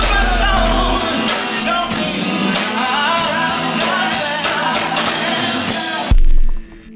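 Live R&B band playing while a male singer sings. About six seconds in, a sudden deep bass boom cuts across the music, and then the sound quickly drops away.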